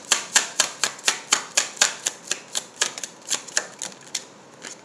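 Rhythmic sharp tapping on a hand-held tarot deck, about four taps a second, growing fainter and sparser and stopping near the end.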